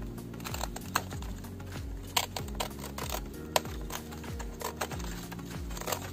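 Crisp clicks and crackles of a small blade cutting through the dry fibrous sheath at the base of a coconut bonsai frond, a few sharp snaps among lighter crackling, over steady background music.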